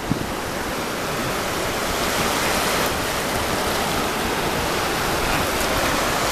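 Shallow surf washing over the sand at the water's edge: a steady rush of water that slowly grows a little louder, with one brief knock just after the start.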